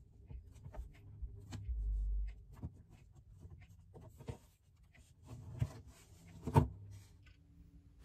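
Faint scattered taps, clicks and rubbing from fingers pressing small round magnets onto a paper-covered wooden paint stick on a wooden table, with a dull low thump about two seconds in.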